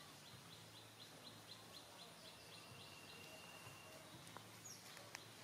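Faint birdsong: a run of quick, high, repeated chirps about four a second, then a short, steady high trill.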